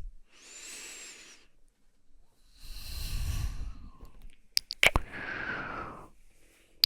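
A woman breathing close to the microphone: three slow, airy breaths, with a couple of sharp clicks just before the third.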